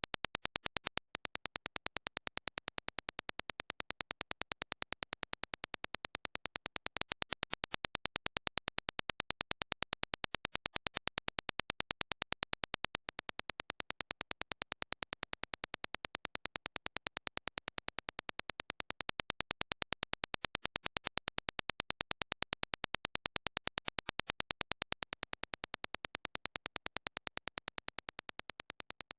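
Dirac impulse test signal: a rapid, evenly spaced train of sharp clicks, many a second, played in sections of about six seconds with a step in level between sections, comparing the reference impulse with the same impulse reproduced through the Dan Clark Audio Expanse headphones. It fades out near the end.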